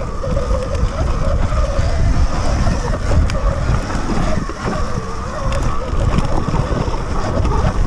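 Sur-Ron X electric dirt bike riding along a dirt trail, heard from on board: wind rumbling on the microphone and tyres rolling over dirt and dry leaves, with a wavering whine and scattered knocks and rattles from the bike over bumps.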